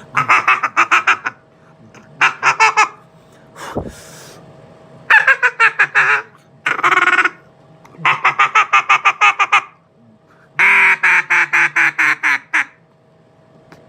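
Hand-blown duck call worked in a feed call: runs of rapid, chattering notes, about seven a second, repeated six times with short pauses. A beginner is practising the call, and the rhythm is uneven. There is a single knock about four seconds in.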